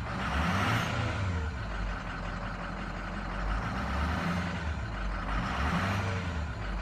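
Ford 6.0L Powerstroke turbo diesel V8 running in the cab of a 2006 F-350 Super Duty, revved up briefly a few times from idle.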